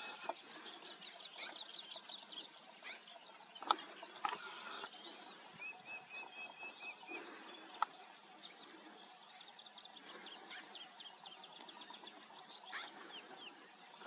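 Small songbirds singing: runs of quick, high, repeated notes, with a wavering held note about halfway through. Two sharp clicks stand out, a little under 4 seconds in and again near 8 seconds.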